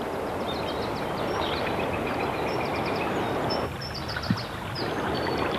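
Fast river water rushing over stones in a steady hiss, with small birds chirping in quick high trills above it. The water noise dips briefly a little after the middle.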